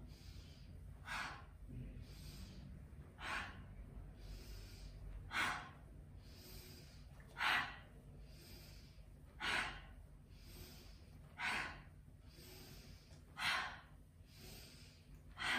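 A woman breathing hard in rhythm with a seated cat-cow spinal movement: eight forceful exhales about every two seconds, each followed by a quieter inhale.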